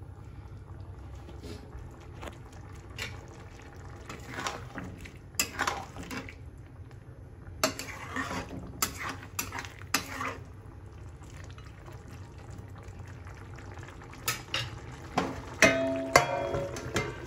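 Metal spatula stirring and scraping chicken curry around a steel kadai, in three spells of short scrapes and clinks against the pan, the last the loudest, over a steady low hum.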